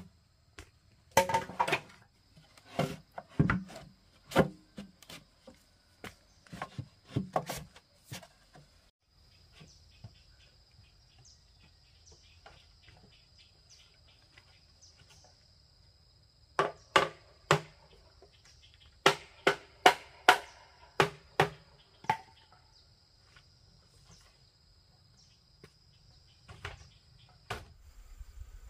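Hard blows of a tool striking bamboo, in two runs of about ten strikes each, with a few softer knocks near the end. A steady high-pitched insect drone runs underneath.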